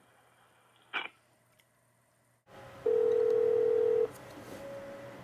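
Ringing tone of an outgoing phone call placed through Skype: one steady tone a little over a second long, starting about three seconds in, then a fainter, slightly higher tone near the end. A short click about a second in.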